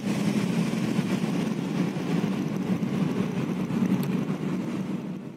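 Steady low hum of a running car, heard from inside its cabin.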